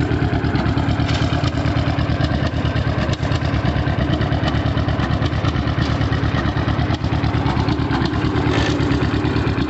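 John Deere G tractor's two-cylinder engine running steadily, loud, with an even pulsing beat.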